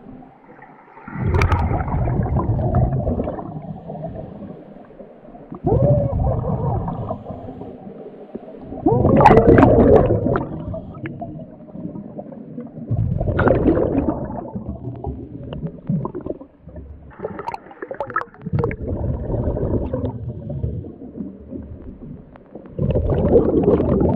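Scuba diver breathing through a regulator underwater: exhaled air bursts out as a rush of gurgling bubbles about every four seconds, quieter between breaths.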